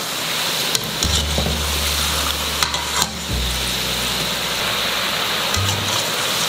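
Potato roll samosas deep-frying in hot oil, a steady sizzle, while a wire skimmer stirs through the oil and clicks against the aluminium pan a few times.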